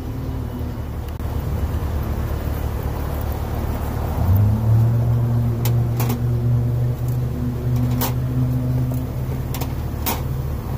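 Aerosol cans clicking as they are set one by one into a vending machine's rack, a few sharp clicks, over a steady low motor rumble that swells into a louder hum from about four seconds in until near nine seconds.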